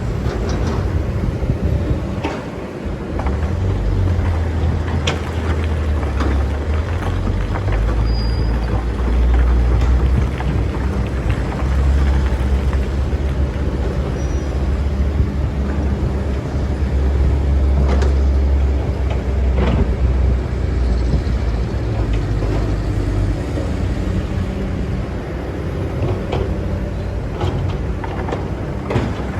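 Excavator's diesel engine running while it digs, its low drone swelling and easing with the load, with a few sharp clanks.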